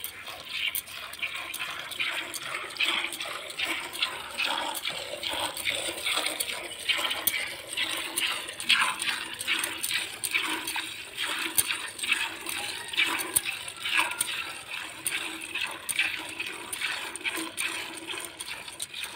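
Cow being milked by hand: jets of milk squirting into a plastic bucket that already holds milk, a rhythmic spurting of about two squirts a second as the teats are squeezed in turn.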